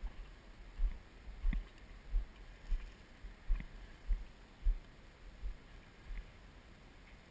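Footsteps of the person carrying the camera, walking through the garden: a steady series of dull, muffled thuds about two-thirds of a second apart that stops about six seconds in.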